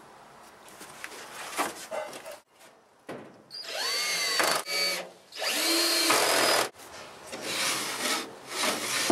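Cordless drill running in two short bursts, each with its motor whine rising and then falling. Near the end a wooden sliding chicken door rubs as it is worked up and down in its wooden guides.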